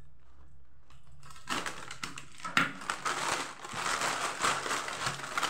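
Clear plastic wrap and foil snack packets crinkling as the wrap is cut open with scissors and the packets are pulled out, beginning after a quiet first second or so, with a sharper click a little past halfway.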